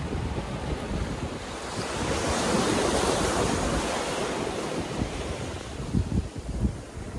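Sea waves breaking and washing up a beach, with wind buffeting the microphone; one wave swells to its loudest about two to four seconds in.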